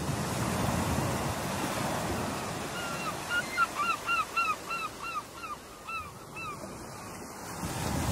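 Ocean surf breaking in a steady rush. From about three seconds in, a bird calls a quick series of about a dozen short notes that rise and fall, roughly three a second.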